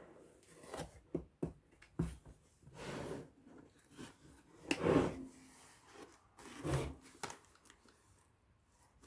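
Handling noise from a small laptop being turned and worked by hand: scattered rubs, scrapes and light knocks, loudest about five seconds in and again near seven seconds.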